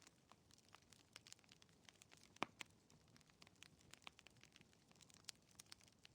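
Wood fire in a fireplace crackling faintly, with irregular small snaps and one louder pop about two and a half seconds in.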